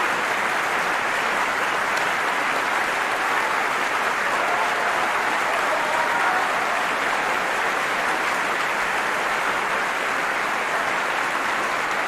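Opera house audience applauding steadily after an aria, with a few faint shouts of approval mixed in.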